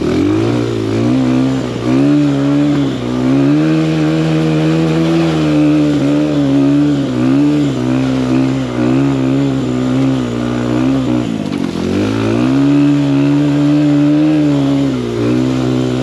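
Dirt bike engine running under way, its pitch rising and falling as the throttle is worked on and off. Its pitch drops sharply and climbs back several times, most deeply about twelve seconds in.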